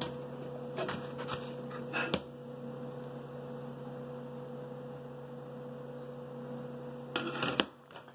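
Steady low electrical hum, with a few brief clicks about one and two seconds in and a short rustle of handling near the end.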